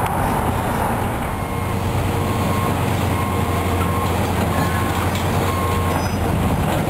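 Heavy demolition machinery running steadily with a low engine drone, with faint metallic squeaks and light clanks as metal piping is pulled out of a building.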